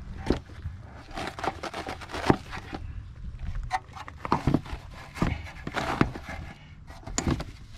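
Irregular clicks, knocks and scrapes of parts being handled and worked by hand, about a dozen sharp taps spread unevenly over several seconds.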